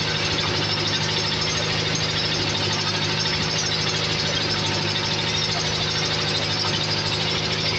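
Truck-mounted crane's diesel engine running steadily under lifting load, a constant rattly drone.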